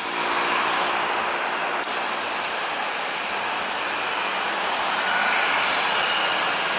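Airbus A320-200 jet engines running at taxi power: a steady rushing noise, with a thin high whine coming in about five seconds in.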